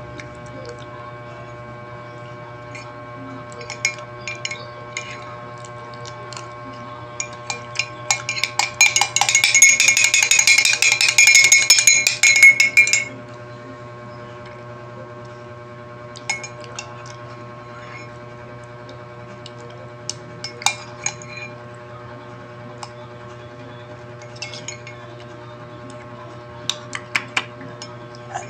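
Metal spoon clinking against a ceramic mug while avocado is scooped out and eaten. Scattered single taps are broken, from about eight seconds in, by some five seconds of rapid, ringing clinks as the spoon rattles around the inside of the mug.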